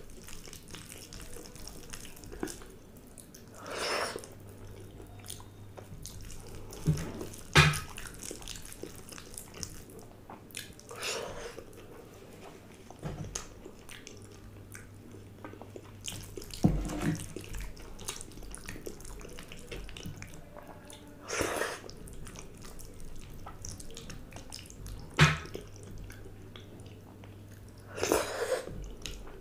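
A hand squishing and mixing rice soaked in water (pakhala bhaat) in a glass bowl: wet squelches and drips every few seconds, with a sharp click twice.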